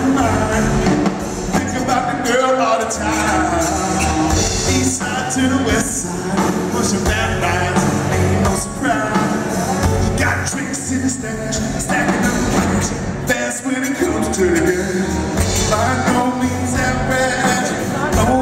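Live country-rock band playing loudly, with a male lead singer singing over guitars, bass and drums.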